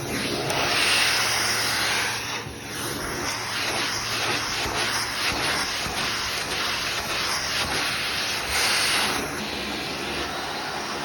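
Electric vacuum cleaner running, a steady rushing hiss with a scraping, rubbing texture; the hiss swells louder in the first two seconds and again briefly near the end.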